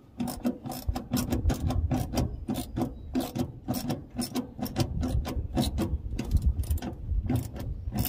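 Small hand ratchet with an extension clicking in quick repeated strokes as it tightens the center bolt of a wiring harness connector through a firewall.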